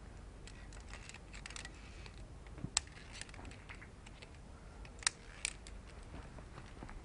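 Scattered small clicks and scrapes, with three sharper clicks about 3, 5 and 5.5 seconds in, from a climber moving down a via ferrata: metal climbing gear clinking and boots on rock.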